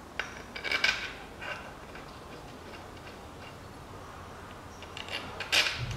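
Hand ratchet clicking in short runs while the bolts of a water pump are turned in on the engine block: a run of clicks near the start, a quiet stretch, then a louder run near the end.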